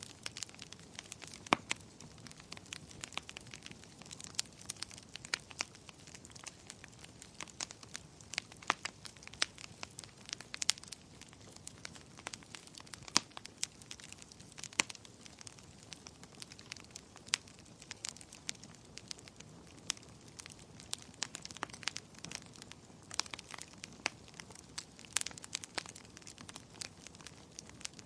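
Wood fire crackling in a fireplace: irregular sharp pops and snaps, several a second, over a soft steady hiss of burning.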